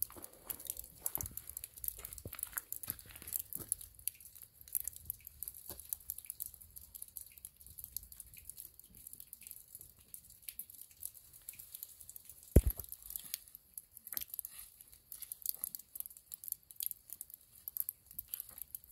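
Footsteps crunching and crackling on dry fallen leaves and dirt, in irregular small crackles, with one sharp knock a little past the middle.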